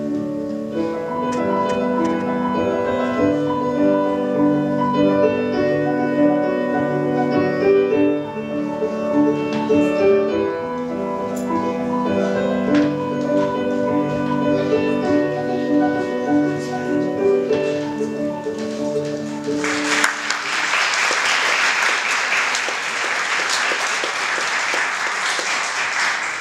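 Piano music with a melody of held notes plays for about twenty seconds, then stops and an audience applauds for several seconds.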